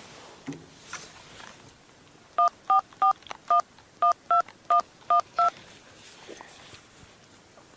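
Mobile phone keypad being dialled: nine short touch-tone beeps in about three seconds at an uneven pace, each beep two tones sounding together.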